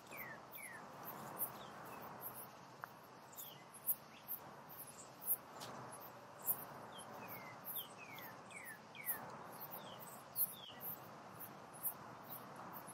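Insects chirping in rapid, very high, regular pulses, with groups of short falling chirps, over the soft rustle of a canvas-wrapped blanket roll being unrolled and handled.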